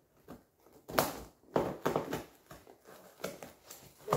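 Scissors stabbing and cutting into a taped cardboard box: a series of sharp knocks and scrapes about half a second apart as the blades force through stiff cardboard.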